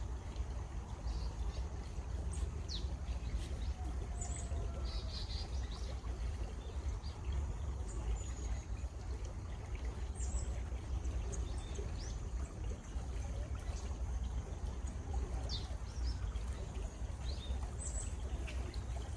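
Steady rush of flowing water, like a stream, with birds chirping and whistling in short calls on and off over it.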